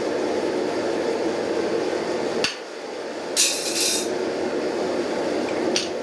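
Blacksmith handling a red-hot steel pickaroon head at the anvil: a short hissing scrape about three and a half seconds in and a sharp metallic clink near the end, over a steady low roar. Hammer blows on the anvil follow right after.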